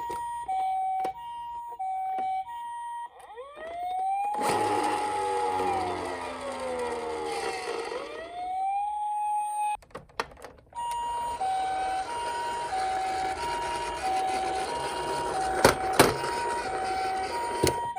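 Toy ambulance and toy police car electronic sirens sounding in turn. First comes the two-tone hi-lo ambulance siren, then a police siren that winds up and falls back in a wail, then the hi-lo ambulance siren again. There are two sharp clicks near the end.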